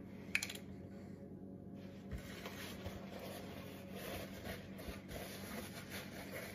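A plastic cap clicks open on a canola oil bottle near the start. Then a paper towel rustles and crinkles as it is handled and folded, over a faint steady low hum.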